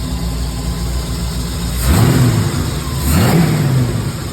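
Ford 351 Cleveland V8 with a 650 double-pumper carburetor and a small cam, heard through its exhaust pipes. It idles steadily, then is blipped twice, about two and three seconds in, each rev rising and falling in pitch.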